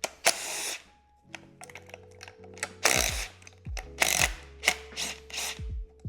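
Background music with a deep, falling bass thump beat over steady low tones, with several short hissy hits.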